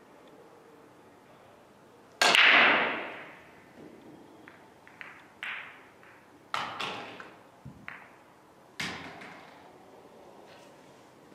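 Pool break shot about two seconds in: the cue ball cracks into the racked balls and they clatter apart, fading over about a second. Several separate sharp clicks and knocks of balls striking each other follow over the next few seconds.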